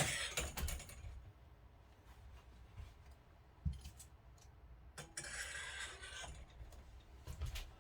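Faint handling noises: a few light clicks and knocks, and a rustle lasting about a second, starting about five seconds in.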